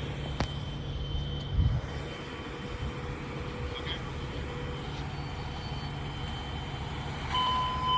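Vehicle engine running steadily with a low rumble. A dull thump comes about a second and a half in, and a steady high electronic beep starts near the end.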